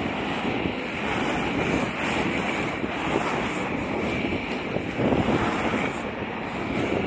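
Inline skate wheels rolling on pavement at speed, a steady rushing noise that swells about once a second with each skating stride, mixed with wind buffeting the microphone.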